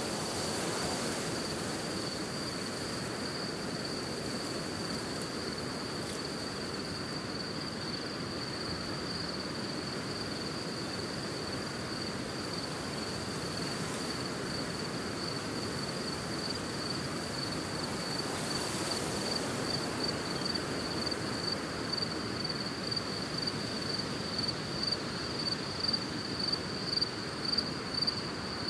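Crickets or similar insects trilling in one steady high tone over a soft wash of wind. Near the end the trill swells and fades in regular pulses, about one and a half a second, and grows louder.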